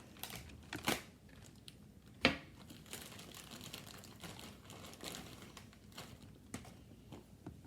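Plastic packaging crinkling and rustling as it is handled, with scattered light clicks and a sharper click about two seconds in.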